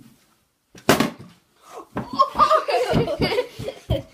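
A plastic drink bottle lands on a wooden floor with a sharp thud about a second in. Then children laugh loudly for about two seconds.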